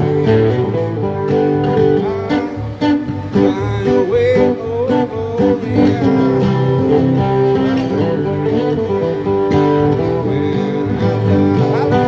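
Acoustic guitar strummed with a pick, playing a continuous chord accompaniment.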